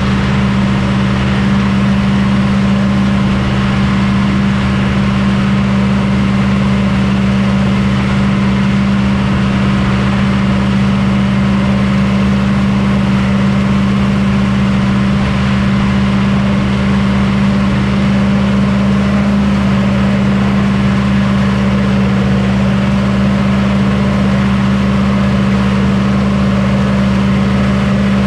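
Combine running steadily: a constant, even engine drone with a deep hum that does not change in pitch or level.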